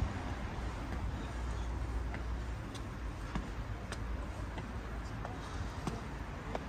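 Footsteps, a series of light ticks about every half second to second, over a steady low outdoor rumble.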